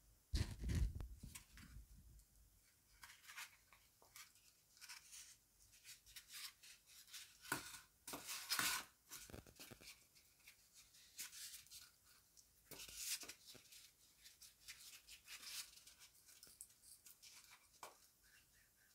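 Faint rustling and scraping of paper and foam board handled at a craft table, with an Elmer's glue stick rubbed across the board in short strokes. A low thump comes about half a second in.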